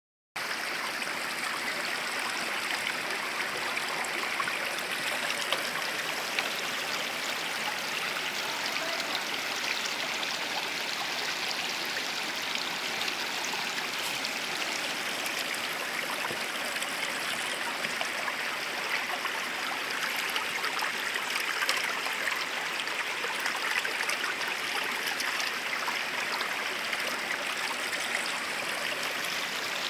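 Shallow stream running over rocks, close by: a steady, even rush of water.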